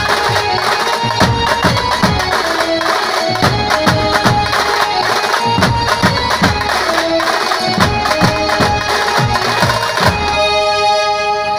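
Street band music: a large bass drum and other drums beating a quick, driving rhythm under a held, wavering melody line. About ten seconds in the drumming stops and only the sustained melody notes carry on.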